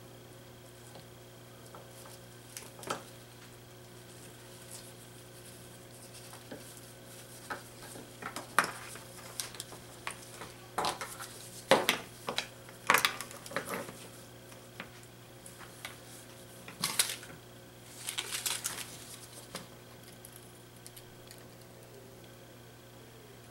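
Light clicks, taps and clatter of a small circuit board, components and tools handled on a workbench during soldering, a few scattered at first, then a dense run of sharper clicks through the middle, over a steady low hum.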